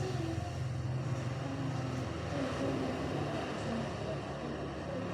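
Steady low hum with a constant background rumble, and faint distant voices here and there.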